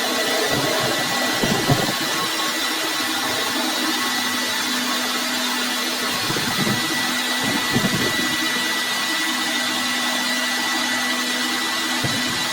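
A workshop machine's motor running steadily with a constant high whine and a low hum, with a few brief rattles about a second and a half in and again around six to eight seconds in.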